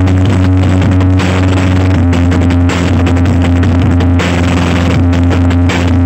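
Very loud music blasting from a parade sound system's tall stacks of loudspeakers, dominated by a deep, steady bass.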